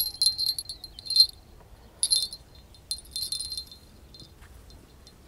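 Small bite-alarm bell on a fishing-rod tip jingling in three short, irregular spells as it is clipped onto the rod by hand.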